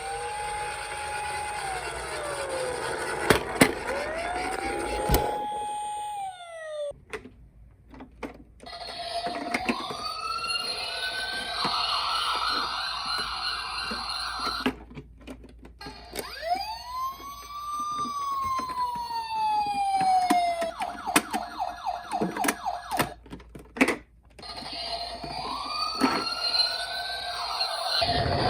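Electronic siren sounds from toy ambulance minicars, several in turn with short breaks between them. They are wails that rise, hold and fall, with one fast, rapidly pulsing stretch partway through, and a few sharp clicks.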